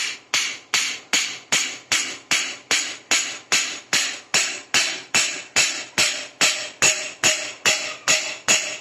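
Hammer tapping the end of a pedestal fan motor's steel shaft with light, even blows, about three a second, each with a short metallic ring, to drive the shaft out of the motor housing.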